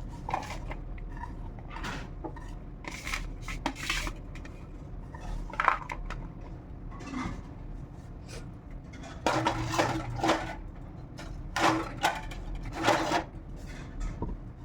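Kitchen dishes and utensils clinking and scraping irregularly as ingredients are handled, with a few longer scraping runs in the second half.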